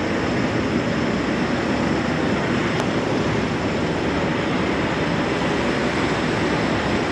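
Steady drone of idling semi trucks parked close together, an even rumbling noise with no change, and one faint brief tick about three seconds in.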